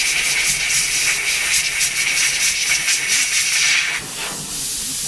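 Compressed-air line hissing steadily as it blows cleaner out of a lawnmower carburettor float bowl, easing off to a lower hiss about four seconds in.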